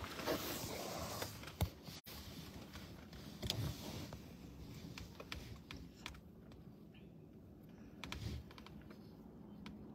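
Irregular small clicks and a few soft thumps from a phone being handled and settled in place inside a quiet truck cab, with one sharper click about a second and a half in.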